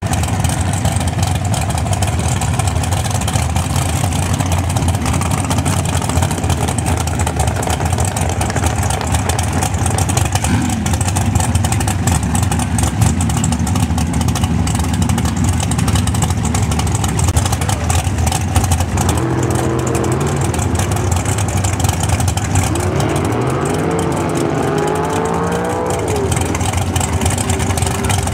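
Drag racing engines running in the pit lanes, a steady loud rumble. In the last third an engine revs up and down several times.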